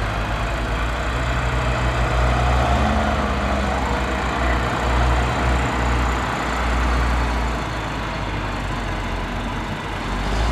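Claas Xerion 3800 tractor's engine running steadily, with a short rise in pitch about three seconds in, while it pushes maize silage.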